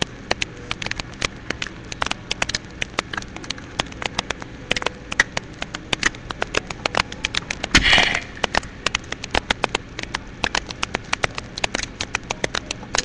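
Sheet of printer paper being folded and creased by hand: irregular crackling and clicking, with one louder rustle about eight seconds in.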